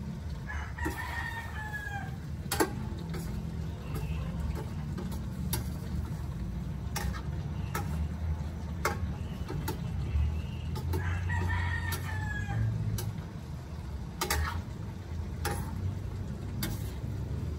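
A rooster crowing twice, about ten seconds apart, each crow about a second long and falling at the end. Sharp clinks of a metal ladle against a stainless steel wok sound now and then, over a steady low rumble.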